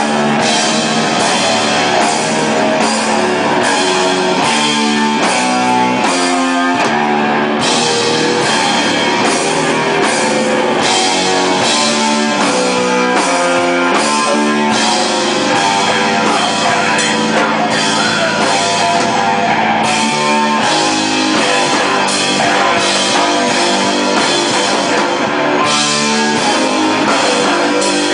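Hardcore band playing live: distorted electric guitar chords over a pounding drum kit, loud and unbroken.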